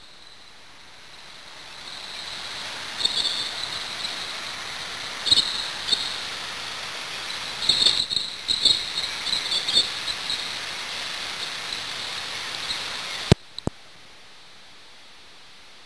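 Rushing water of a fast, flood-swollen river heard from a kayak, a steady rush that swells after a couple of seconds. Short bursts of high chirping sound over it, along with a few soft knocks. Near the end it cuts suddenly to a quieter, even rush of rapids.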